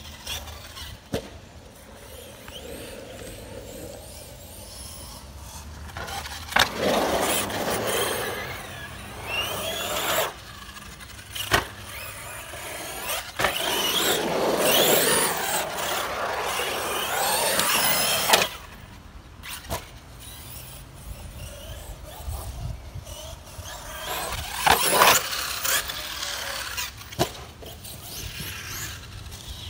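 Arrma Outcast 6S electric RC stunt truck driven hard in short bursts: the brushless motor whines up and down in pitch while the tyres scrub and squeal on concrete, with several sharp knocks as the truck bangs down or hits the bowl.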